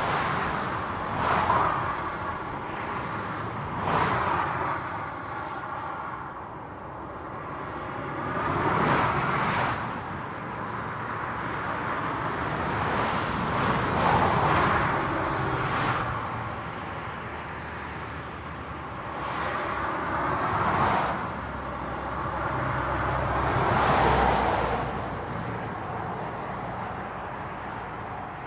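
Highway traffic: a steady road noise of tyres and engines, with vehicles passing one after another, each swelling and fading over a few seconds, about six in all.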